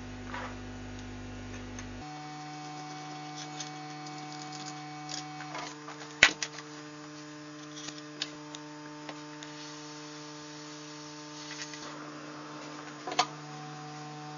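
Steady electric hum of a hot-air rework station, whose tone changes abruptly about two seconds in. A sharp click sounds about six seconds in and another near the end.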